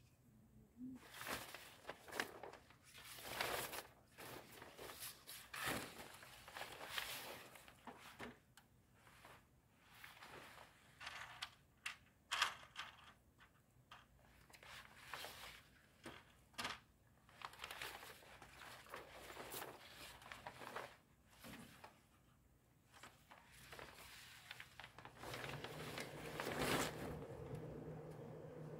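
Clear plastic sheeting crinkling and rustling in irregular bursts as it is handled and pulled over a door frame. A steady low hum comes in near the end.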